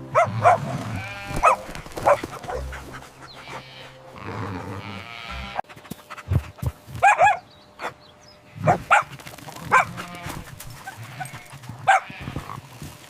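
Sheep bleating in short calls at irregular intervals, mixed with some dog barking.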